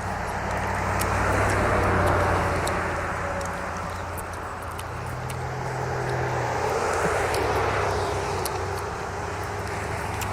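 Vehicle engine noise that swells and fades twice, loudest about two seconds in and again about seven seconds in, like traffic passing.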